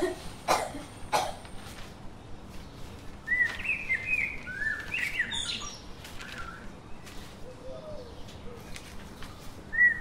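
A man coughs twice near the start, then small birds chirp with short, repeated rising-and-falling calls.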